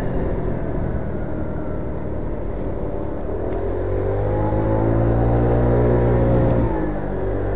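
Motor scooter engine under way, with low wind rumble. About halfway through it accelerates with a rising whine for about three seconds, then the throttle is shut and the whine drops away suddenly.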